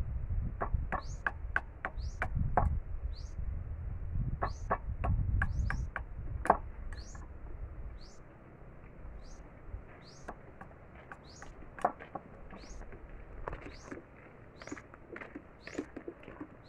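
A large knife whittling a thin stick into a skewer: sharp clicks of the blade biting the wood, busiest in the first half, with a low rumble of handling. Behind it a bird repeats a short rising chirp about twice a second throughout.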